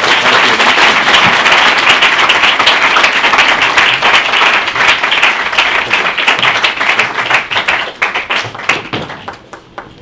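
Audience applauding, thinning to a few scattered claps near the end.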